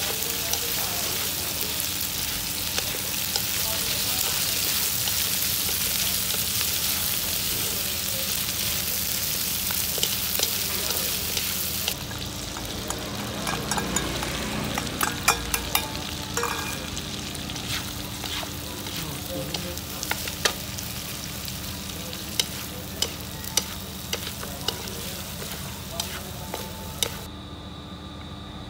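Stir-fry sizzling in a wok, with a wooden spatula and chopsticks scraping and clacking against the pan as the meat is tossed. About halfway through, the sizzle quietens and is broken by a run of sharp clacks as chopped spring onions are stirred in. The frying falls off near the end.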